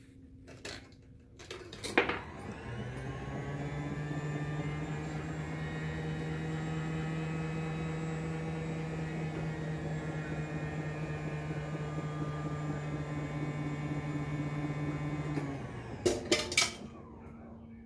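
The motor and gear train of a Balles Brothers carnival crane, a restored Exhibit Supply digger, running through one play cycle. Sharp mechanical clicks, the loudest about two seconds in, come as it starts. A steady motor hum with a whir of gears follows while the boom swings and the claw dips into the prize bed. It stops after about thirteen seconds, followed by a quick series of clicks.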